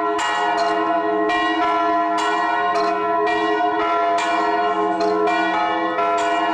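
Church bells ringing, with a new stroke about once a second while the earlier tones keep ringing underneath.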